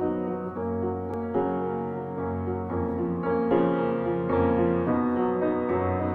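Background music led by piano, with held chords changing about every second.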